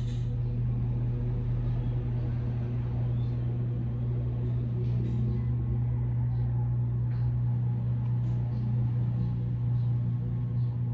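A steady low hum, even in level throughout, with a few faint clicks.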